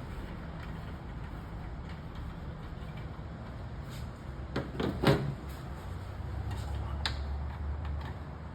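Light knocks and clicks of PVC handrail pipes and screw caps being handled and fitted into the platform: a quick cluster of them about halfway through, the loudest just past the middle, and one more later, over a steady low hum.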